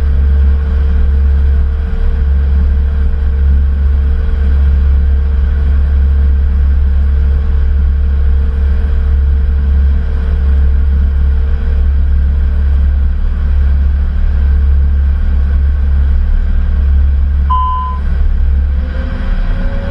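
Steady low rumble of a Cessna Citation CJ4's cockpit with its Williams FJ44 turbofan engines running on the ground. Near the end a single short electronic chime sounds from the avionics.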